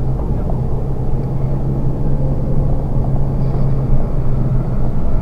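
Steady low rumble of road and engine noise inside a moving 2017 Honda Civic Sport's cabin, with a level engine hum held throughout.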